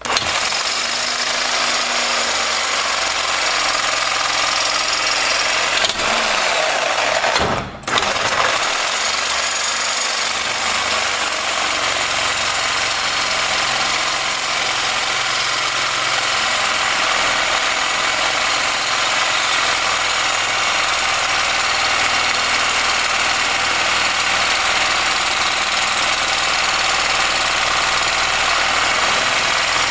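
Reciprocating saw running steadily as it cuts through a steel leaf-spring U-bolt that would not loosen. The saw stops briefly about seven and a half seconds in, then starts cutting again.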